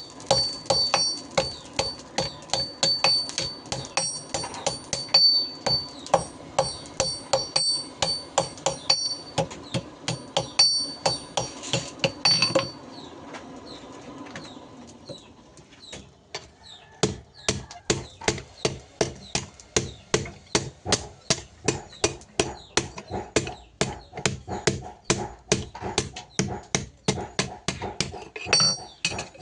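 Blacksmith's hammer striking on an anvil in a steady rhythm of a few blows a second, each blow with a high ring. About 13 seconds in the hammering stops for a few seconds, then resumes as duller blows without the ring, and the ring comes back near the end.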